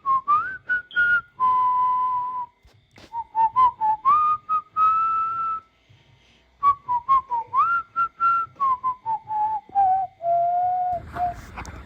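A whistled melody over sharp percussive hits, an intro music track; the tune ends near the end, giving way to outdoor traffic hum.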